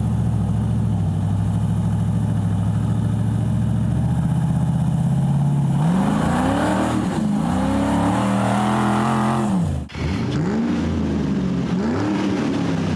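Rock buggy's engine running at a steady speed, then revved up and down repeatedly from about six seconds in, with a brief break near ten seconds.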